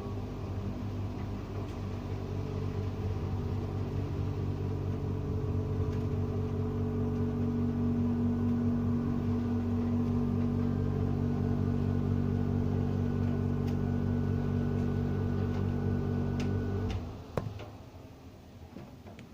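Steady low droning hum of a running motor, holding one pitch, that cuts off abruptly about seventeen seconds in, leaving a quieter background.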